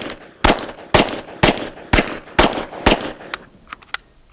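H&K VP70Z 9mm blowback pistol firing seven shots in steady succession, about two a second. A few light clicks follow near the end as firing stops on a round that fails to go off, a dud.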